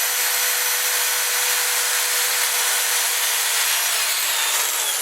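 Power drill running steadily with a whining tone as the bit bores into a broken alloy shifter toe-peg bolt; the whine starts to wind down right at the end.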